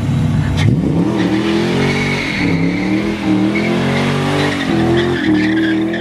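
Car engine being revved repeatedly: its pitch climbs, holds, drops back and rises again several times.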